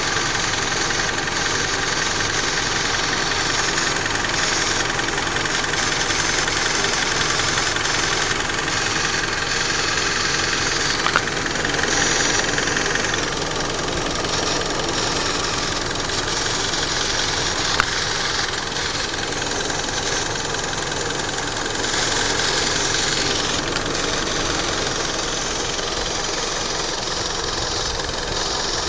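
Mitsubishi Lancer engine idling steadily, with a brief click twice along the way.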